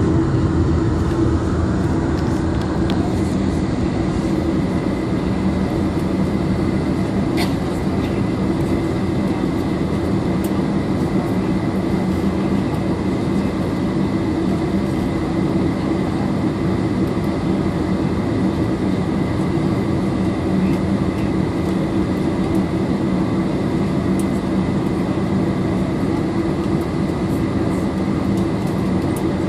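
Steady cabin noise inside a Boeing 747-400 taxiing, with the engines at low taxi power and the cabin air hum making an even rumble and a faint steady high tone.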